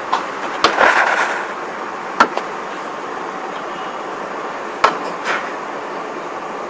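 Sharp clicks and snaps as the clips of an LED LCD TV panel's metal bezel frame are pried loose by hand: a quick cluster in the first second or so, one about two seconds in, and two more near five seconds. A steady hiss runs underneath.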